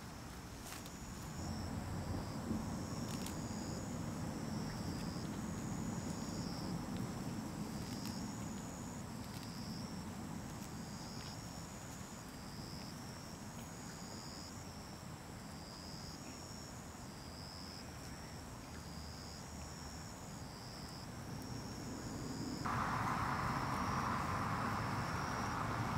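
Insects chirping outdoors: short high-pitched pulses repeating steadily about once a second over a low background rumble. A steady hiss joins in near the end.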